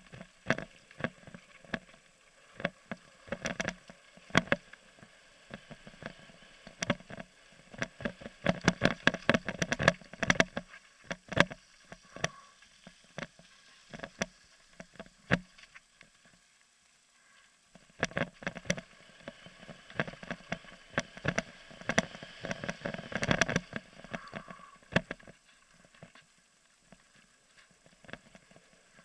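Mountain bike rattling and clattering down a rough gravel and dirt trail: rapid knocks and clicks from the bike over bumps, with quieter smooth-rolling stretches about halfway through and near the end.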